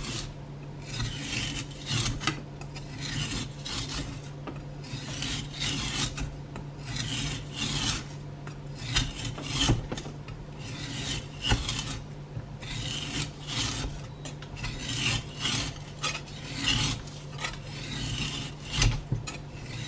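Sharp chef's knife shaving thin slices off a semi-frozen wild pork leg: irregular repeated cutting strokes through the hard, near-frozen meat, about one or two a second, with a few sharper clicks.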